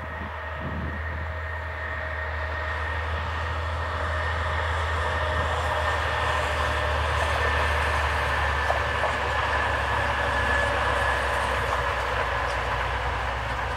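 Freight train of silo wagons rolling past behind its locomotive: a steady low rumble and wheel noise that grow louder over the first several seconds, then ease slightly near the end, with a faint high steady whine.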